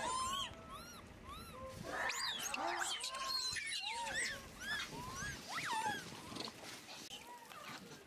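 A troop of macaques calling: many short coo calls, each rising then falling in pitch, overlapping one another.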